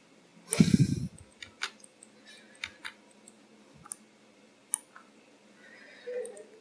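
Computer mouse and keyboard clicks: single sharp clicks spaced about a second apart. A louder, duller thump comes about half a second in.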